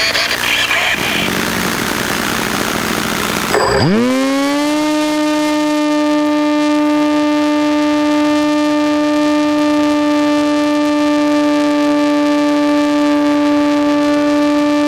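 Spirit 2 glider's electric motor and propeller spooling up about four seconds in with a quick rising whine, then running at full power with a steady whine as the plane climbs. Before that there is a rough, noisy rush.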